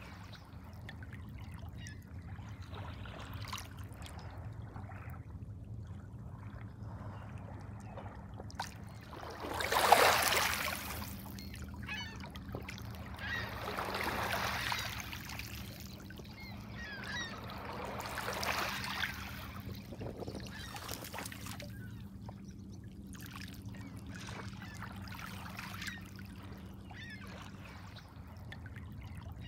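Small lake waves lapping and washing over a pebble shore, with one louder wash about ten seconds in and softer ones near fourteen and eighteen seconds. A faint steady low hum runs underneath.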